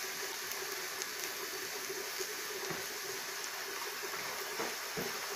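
Onions and curry powder frying in oil in a non-stick pan: a steady, quiet sizzle with a few faint clicks.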